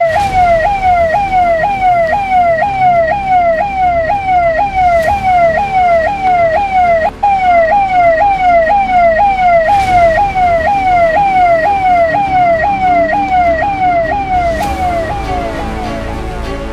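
Police car's electronic siren sounding a fast repeating yelp, each cycle jumping up and gliding down in pitch about twice a second, over low vehicle noise. It fades out near the end.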